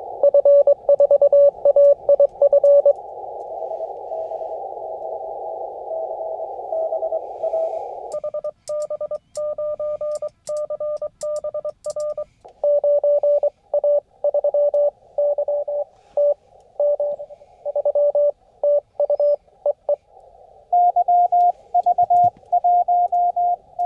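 Morse code (CW) on a ham radio transceiver: keyed beeping tones of received stations in a narrow band of receiver hiss. For a few seconds in the middle the hiss drops out and a cleaner keyed tone sounds with faint clicks, the operator's own sending sidetone. Near the end a station keys at a slightly higher pitch.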